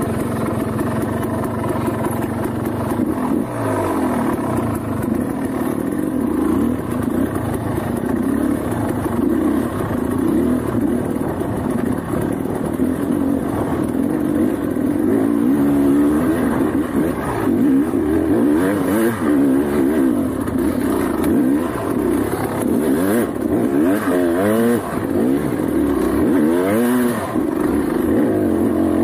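Motorcycle engine running under way, its revs rising and falling again and again.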